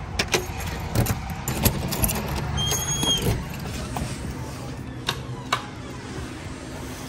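Keys and a door lock clicking as a door is unlocked and pushed open, followed by a few knocks and footsteps. A short electronic beep sounds about three seconds in.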